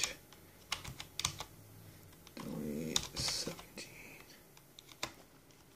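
Computer keyboard keys pressed one at a time, a few scattered clicks, while the BIOS date is set. A short voice-like murmur comes about halfway through.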